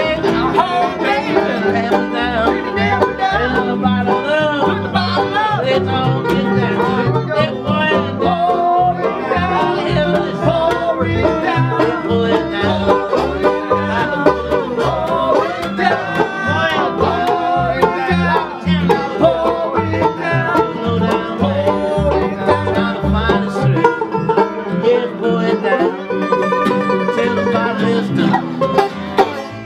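Acoustic bluegrass-country band playing an instrumental stretch live, with banjo picking over acoustic guitar and plucked upright bass.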